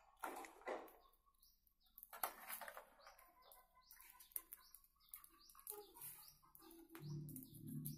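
Faint bird chirping: many short, repeated chirps. A low steady hum comes in near the end.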